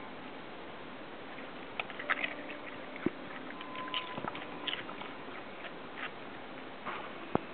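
A dog chewing and crunching an egg off the ground, with the eggshell cracking in a run of crisp, irregular crackles and clicks and one sharper snap near the end.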